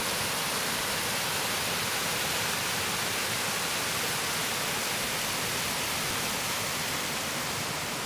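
Small mountain waterfall cascading down rock slabs: a steady, even rush of water.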